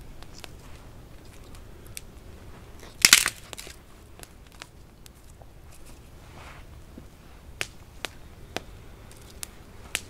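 Small campfire crackling with scattered sharp pops while dry twigs are handled and broken for kindling, with one loud crunching snap about three seconds in.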